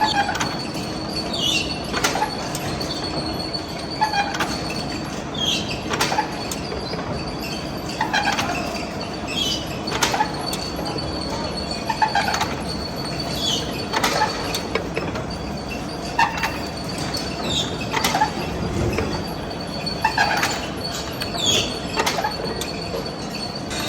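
A large lathe running a heavy steel shaft, with a steady high whine, a click and a short falling squeal about every two seconds, in time with each turn of the work.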